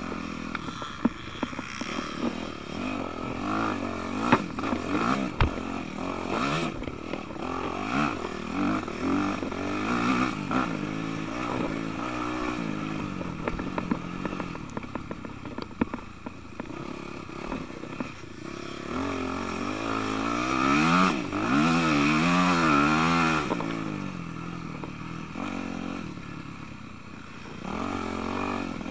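Yamaha YZ250F four-stroke single-cylinder dirt bike engine revving up and down as the throttle is worked over rough trail, loudest and wavering quickly about two-thirds of the way through. Scattered knocks and clatter from the bike run under it.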